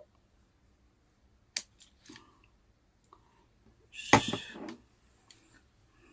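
Water pump pliers squeezing a stiff plastic suspension-ball part into place on an RC car's carbon chassis: a single sharp snap about one and a half seconds in, then a louder clatter of the pliers and chassis being handled about four seconds in.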